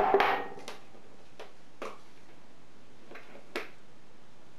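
A drinking glass set down with a sharp knock and a brief ring, then a few faint, scattered clicks.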